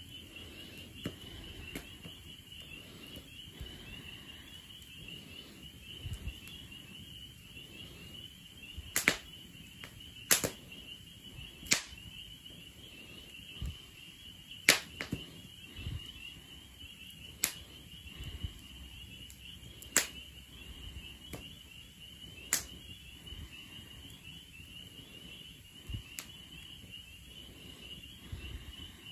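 Wood fire crackling in a metal fire pit, with sharp pops every few seconds, the loudest a third to halfway through. A steady high chirring, like crickets, runs underneath.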